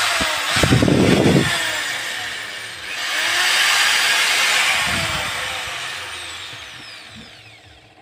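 A few low knocks, then a loud, noisy mechanical whir. It swells about three seconds in and fades away slowly.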